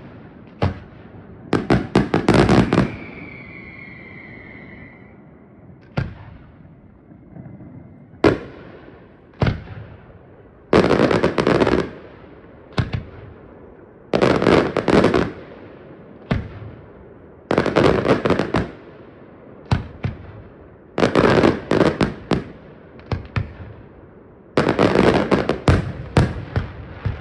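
Aerial fireworks shells bursting in quick salvos, each a cluster of sharp bangs and crackle that dies away, coming every two to four seconds. A firework whistle sounds briefly a few seconds in, falling slightly in pitch.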